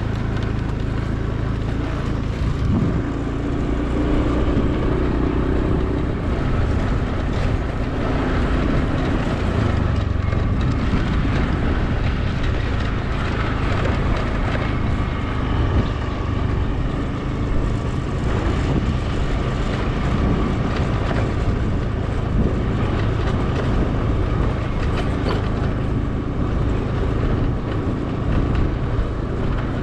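Small motorbike engine running steadily while riding, under a continuous rush of road and wind noise.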